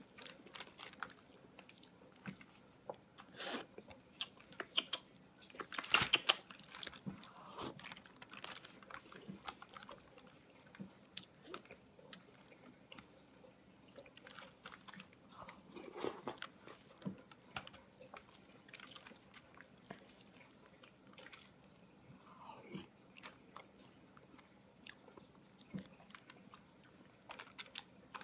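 A person eating a mouthful of soft chicken fettuccine close to the microphone: wet chewing and mouth sounds, with scattered sharp clicks now and then.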